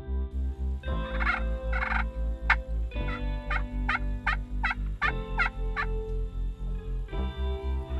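Eastern wild turkey gobblers gobbling: a couple of rattling gobbles about a second in, then a longer run of gobbling from about three to six seconds in. Background music with a steady beat plays underneath.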